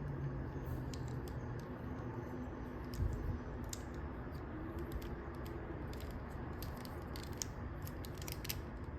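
Scattered small plastic clicks of a Transformers action figure's parts being moved and repositioned by hand during its transformation, over a steady low background hum.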